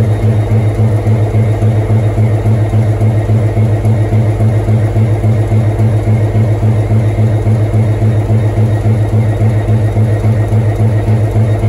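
EMD 12-645E3C turbocharged twelve-cylinder two-stroke diesel of an N class locomotive, heard close beside the engine-room doors, idling steadily with a deep, even, pulsing hum.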